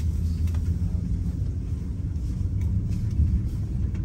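Steady low rumble inside the cabin of an Airbus A330 during engine start.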